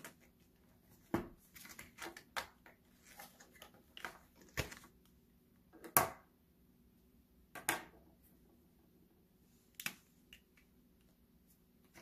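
Faint, scattered clicks and taps from handling felt-tip markers and a disc-bound planner on a desk, with the loudest tap about six seconds in.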